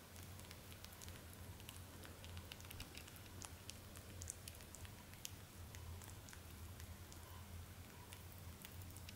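A Netherland Dwarf rabbit chewing banana: faint, quick, irregular clicks from its mouth, over a steady low hum.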